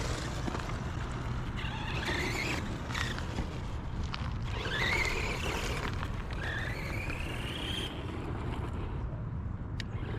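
Brushed electric motor of a Redcat Volcano EPX RC monster truck whining as it accelerates across dirt, the whine rising in pitch three times.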